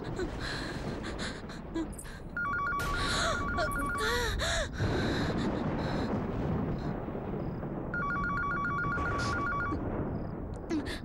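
Telephone ringing in two bursts of about two seconds each, the first a few seconds in and the second near the end, over a low rumble.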